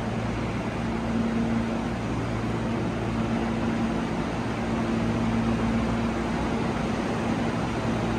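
Steady mechanical hum and rush of an underground railway platform, with a low drone that swells and fades slightly, while no train is moving.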